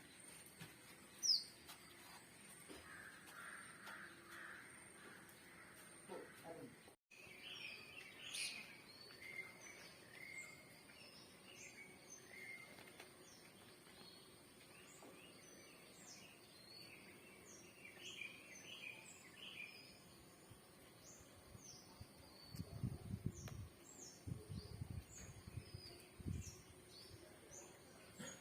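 Faint outdoor birdsong: many short chirps and calls from small birds. Some low rumbling near the end.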